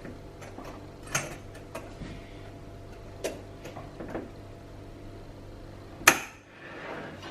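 Scattered light clicks and knocks of kitchen utensils and containers being handled while salt is added to the Thermomix bowl, with one sharper, louder knock about six seconds in.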